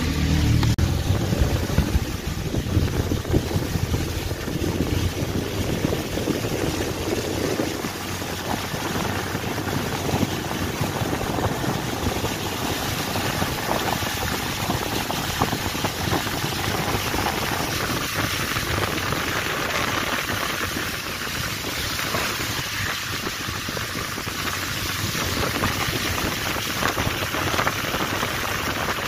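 Steady outdoor hiss of wind on the microphone during snowfall, with scattered faint crackles. A vehicle engine fades out about a second in.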